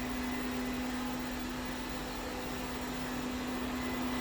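Ziglint robot vacuum cleaner running: a steady motor hum over an even whir of suction and brushes.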